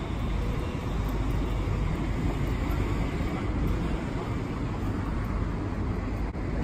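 Steady road traffic noise, a continuous low rumble of cars.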